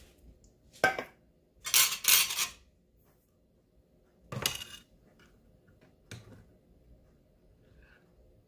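Kitchen utensils knocking and scraping against metal cookware in a few separate clatters. The loudest is a double clatter about two seconds in, with smaller knocks before and after.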